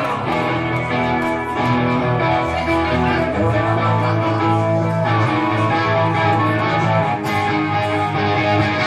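Live rock band playing: electric guitar and bass guitar holding chords that change every second or two.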